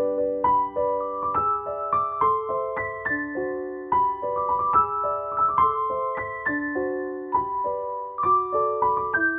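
Background piano music: a continuous run of piano notes stepping up and down in a flowing melody.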